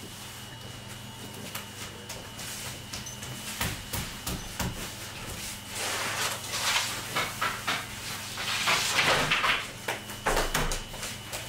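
Bakery work at a stone bread oven: a steady machine hum with a faint high whistle, scattered knocks and clatters, and two longer rough hissing, scraping sounds about six and nine seconds in.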